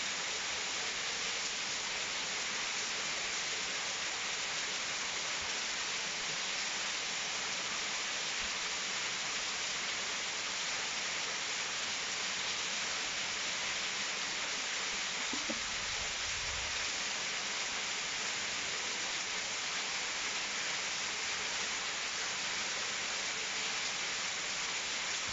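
Steady rushing of running water, like a mountain stream or small waterfall, an even hiss with no change in level. A brief low rumble comes about two-thirds of the way through.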